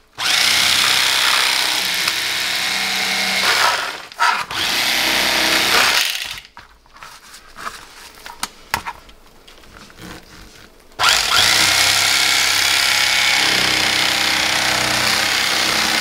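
Ozark Trail electric fillet knife running as its reciprocating blades cut through a spotted bass, in long runs with a brief break about four seconds in. It stops for about five seconds in the middle, leaving only small handling clicks, then runs steadily again.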